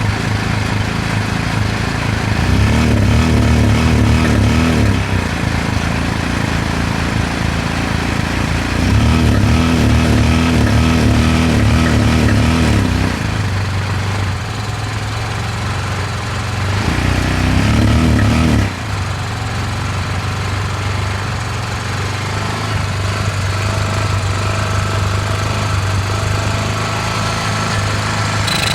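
Honda Pioneer 700 side-by-side's single-cylinder engine running steadily, going louder and fuller three times as the throttle is opened: for about two and a half seconds, then four, then two.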